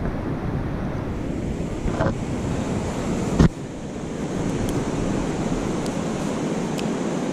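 Steady rush of wind on the microphone and running river water, with one sharp thump about three and a half seconds in.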